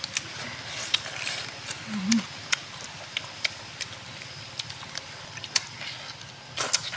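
Close-up eating sounds: irregular wet clicks and lip smacks as a person chews and bites pieces of cooked eel off the bone, over a steady hiss. A brief low hum of the voice about two seconds in.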